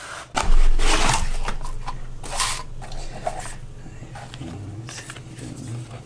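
Cardboard packaging being handled: a loud scrape of the inner box sliding out of its printed sleeve about half a second in, another loud rustle about two and a half seconds in, then quieter handling of the box and paper leaflets.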